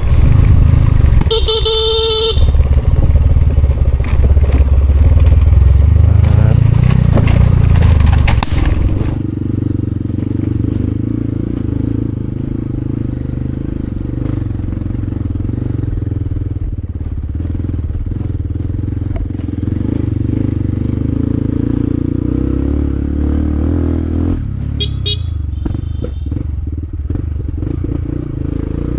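Vehicle engine running hard on a steep climb, easing to a steadier, lower running about eight seconds in. A horn honks for about a second near the start and gives two short toots later, as a warning signal to vehicles on the track below.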